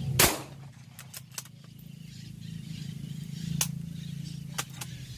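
A single sharp rifle shot from a CBC 8117 bolt-action rifle chambered in .17 HMR, about a quarter second in, followed by a few faint clicks.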